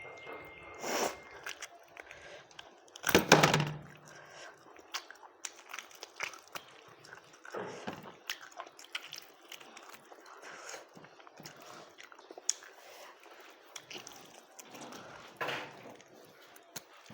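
Close-up eating sounds: chewing, with small irregular mouth clicks and smacks. A brief louder noise comes about three seconds in.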